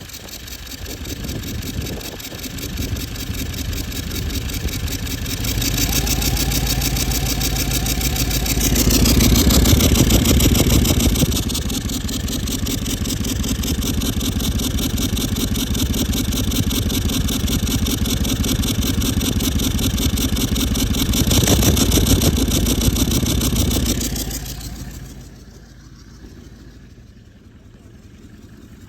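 Toyota 200 series LandCruiser 1VD V8 turbo-diesel running with a failed turbocharger, revved up twice, with a steady high whine over the engine note. The engine sound drops away sharply near the end.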